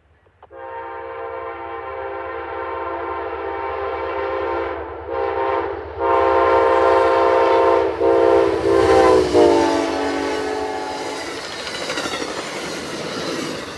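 Amtrak P42DC locomotive's air horn sounding a long blast with two short breaks, growing louder as the train approaches. Its pitch drops as the locomotive passes, then the horn stops and the rush and wheel clatter of the passing passenger cars remain.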